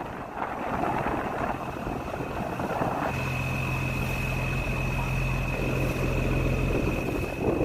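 A motor running steadily with a low hum; about three seconds in, the hum gets stronger and a steady high whine joins it.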